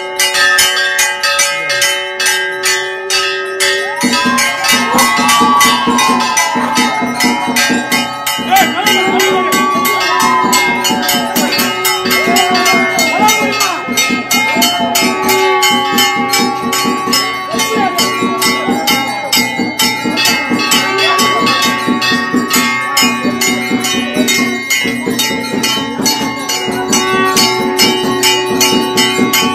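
Temple bells rung rapidly and without pause, strike after strike over a steady ringing tone. From about four seconds in, a wavering melodic line joins the bells.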